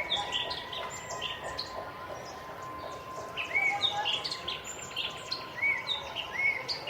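Zoo ambience: birds calling in repeated short chirps and arched whistled notes over a steady background of ambient noise, with a faint continuous tone underneath. The calls come in clusters, one near the start and another from about halfway to the end.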